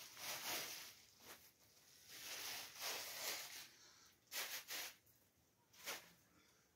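Several short, soft rustles of a plastic bag as dry flatbread is tipped out of it onto a cloth.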